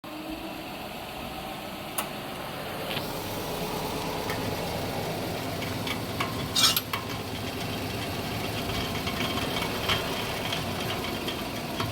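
Subaru Legacy running on a lift with the front wheels driven lightly against the brake and the steering turned, a steady engine hum with scattered clicks and knocks, the loudest a little past halfway. This is the faint beginning of the "kata-kata" clatter of a worn, loose outer drive-shaft joint, which shows itself on full lock under acceleration.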